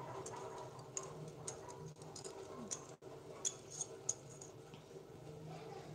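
Faint, scattered light clicks and ticks, about eight of them, over a steady low hum, while a bowl of thick cream-and-mayonnaise sauce is poured out and lifted away.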